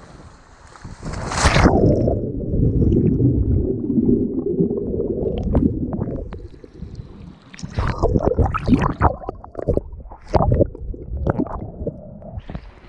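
An action camera plunges into seawater with a splash about a second and a half in, giving a muffled underwater gurgling rumble for a few seconds. It then bobs at the surface, breaking in and out of the water in a run of short splashes and sloshes.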